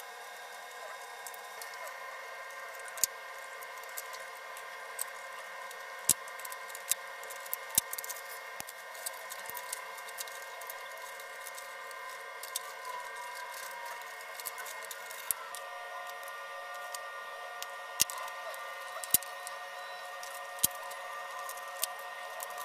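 Scattered sharp clicks and small scratches of rusty barbed wire being handled and worked with pliers, over a steady hum of several held tones.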